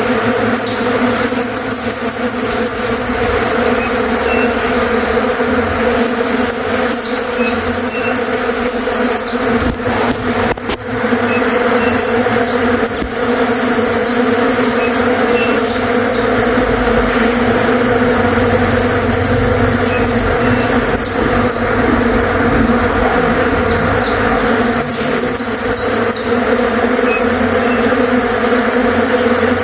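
Swarm of bees buzzing steadily, with a bird singing short, high trills every few seconds.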